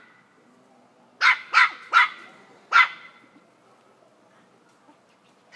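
Toy-breed puppy play-barking: four short, sharp barks in quick succession, the fourth a little apart from the first three.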